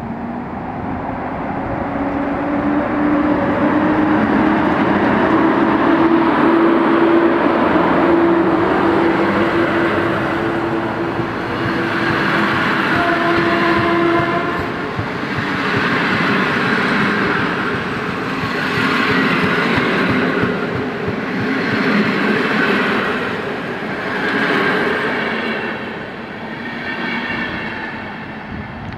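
EU07 electric locomotive and its passenger coaches running past. In the first half there is a steady tone that rises slightly in pitch. After that the coaches' wheels rush and rattle by, swelling every three seconds or so as each coach passes, and the noise fades as the last coach goes by.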